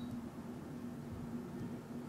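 Steady background noise of an open-air field, an even hiss with a low steady hum underneath, and a very brief high chirp right at the start.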